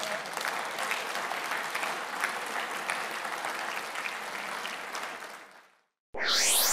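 Audience applauding, fading out about five and a half seconds in. After a brief silence, a loud rising whoosh sound effect begins near the end.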